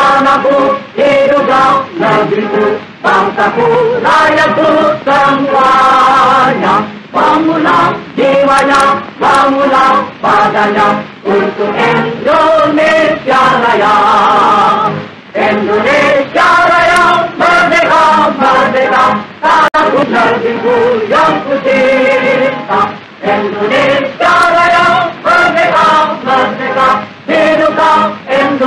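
A choir singing a song in phrases, used as background music.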